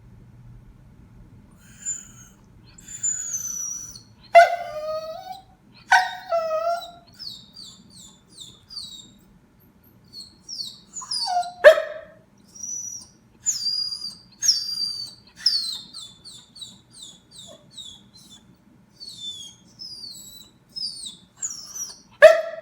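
A puppy whining and whimpering for food in many short, high-pitched cries that fall in pitch, broken by a few sharper yelps, four of them louder than the rest.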